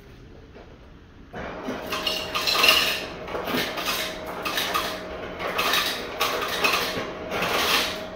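Metal pots, pans and utensils clinking and clattering irregularly, starting suddenly about a second and a half in, with a faint steady hum under it.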